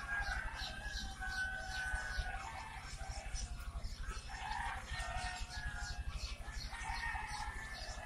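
Many baby chicks peeping at once, a dense, continuous chorus of short high calls, over a steady low hum.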